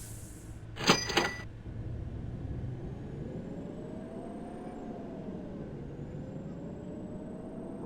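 A vehicle engine running under load off-road, its pitch slowly rising and falling, after a sharp clank with a brief metallic ring about a second in.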